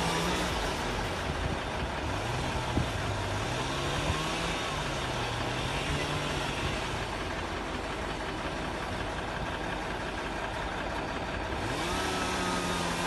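A log sawmill's motor running steadily. Its pitch drops and wavers about a second in, as if it has come under load in the cut, and rises back near the end.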